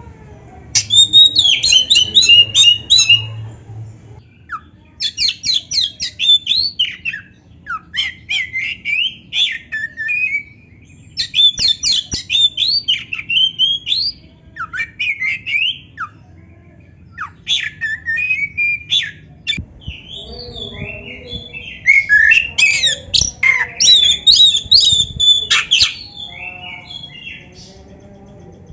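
Oriental magpie-robin (kacer) singing a loud, varied song: rapid runs of high whistled and chattering notes in bursts of a few seconds, with short pauses between.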